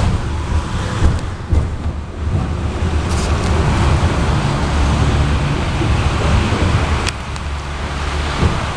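Inside a KTM-19 tram car on the move: a steady low rumble of the running gear and motors with wheel-on-rail noise, and a single sharp click about seven seconds in.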